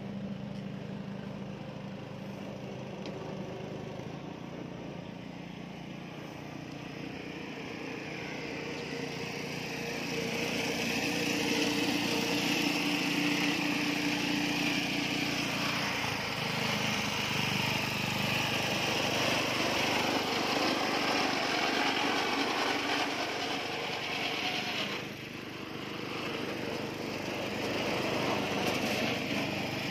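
A small engine of the concrete-pouring equipment running steadily, growing louder about ten seconds in and dipping briefly near the end.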